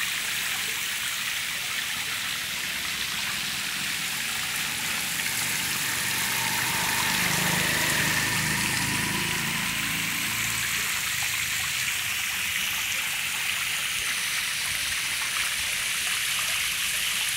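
Water spraying from a hose nozzle and splashing onto the surface of a fish holding tank, a steady hiss that grows a little louder around the middle.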